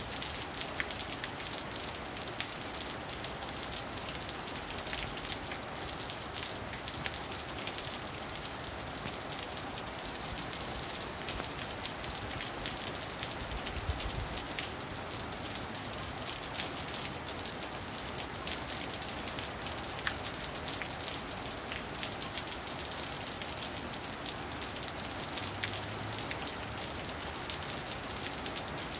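Steady rain falling on wet pavement, a continuous hiss with many individual drop hits.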